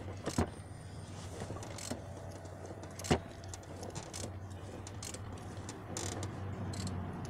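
A few sharp metallic clicks and clinks, the loudest about three seconds in, as a Honda 1.7 VTEC engine's camshaft is turned over by hand during valve lash adjustment. A steady low hum runs underneath.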